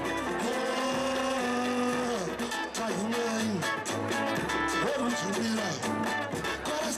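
Live pagode band playing: cavaquinho and acoustic guitar over samba percussion (tantã and repique drums, shaker).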